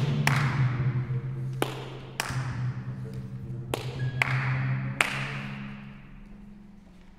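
A contemporary chamber ensemble plays sharp percussive snaps on hand-held objects, about five at uneven intervals, each ringing out with a reverberant tail. Low held notes sound beneath them and fade away toward the end.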